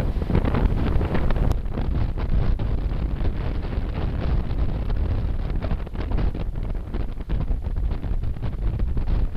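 Wind buffeting a camcorder microphone: a loud, rough, uneven rumble that gusts irregularly.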